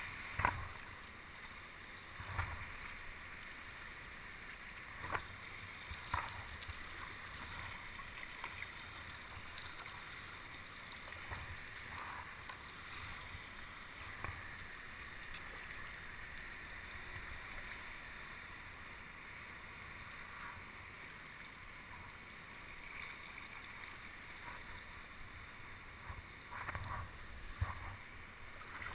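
Swell water lapping and sloshing against a kayak and nearby rocks: a steady hiss of moving water with occasional sharp slaps, several of them close together near the end.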